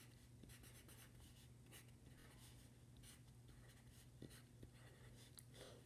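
Coloured pencil scratching on paper in short, irregular strokes, faint, over a low steady hum.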